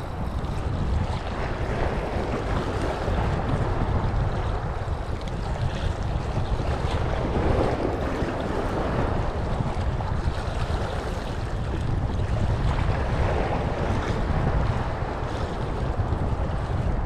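Wind rumbling on the microphone over the steady wash of small sea waves.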